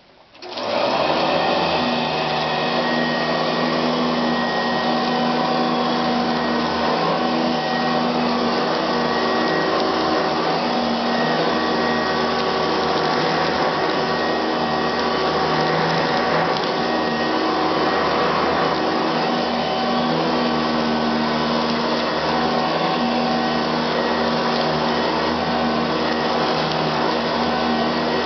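Eureka Commercial bagged upright vacuum cleaner switched on, its motor spinning up within about a second, then running steadily with a whine over a rush of air.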